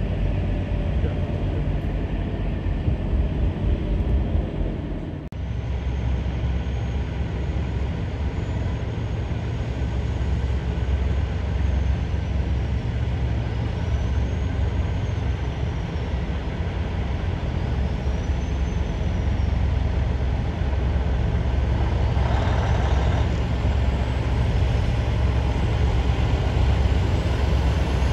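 Semi-truck diesel engines running low and steady. After a break about five seconds in, a Kenworth W900 tractor hauling a refrigerated trailer rolls by, with a short hiss of air about 22 seconds in.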